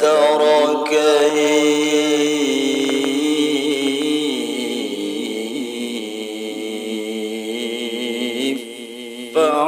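A male qari reciting the Quran in the melodic tilawah style, drawing out one long ornamented phrase that wavers in pitch, with a brief breath-pause near the end before the next phrase begins.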